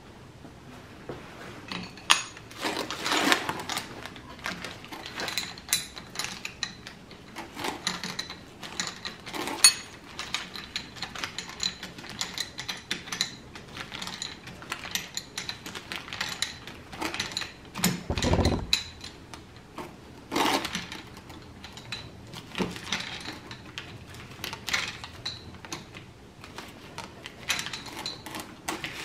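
Two steel open-end wrenches clinking and rattling against a brass quick-connect air fitting as it is tightened into the inlet of an air ratchet. Irregular clicks and scrapes, with one heavier knock about two-thirds of the way through.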